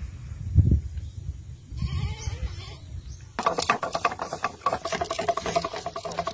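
Low rumble with a few animal bleats. About three and a half seconds in, a sudden fast clattering whir starts as the homemade fishing-line spool spins rapidly on its axle, paying out line.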